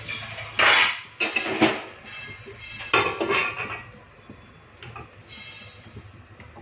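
Stainless steel plates clattering and clinking as one is lifted from a stack and set down: three loud clatters in the first few seconds, then lighter handling sounds.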